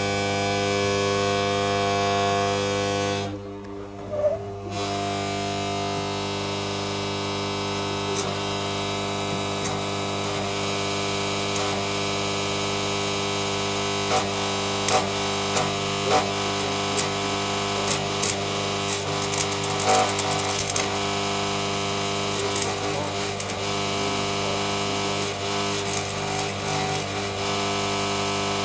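Stick-welding arc from a small MMA inverter welder buzzing steadily as a rod burns along a thin pipe seam. The arc cuts out for about a second and a half near the start, then restrikes, and from then on it crackles and pops irregularly.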